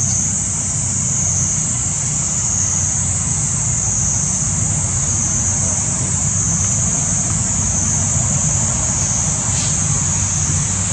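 Steady outdoor background: a continuous high-pitched drone over a low, even rumble, with no distinct events.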